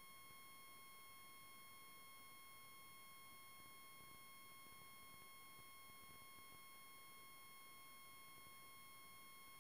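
Near silence under a faint, steady high-pitched tone that does not change or break.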